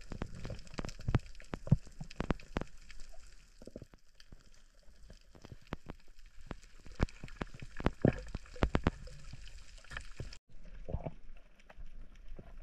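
Underwater sound from a camera on a coral reef: irregular sharp clicks and crackles, some with a dull knock. The sound drops out for a moment near the end.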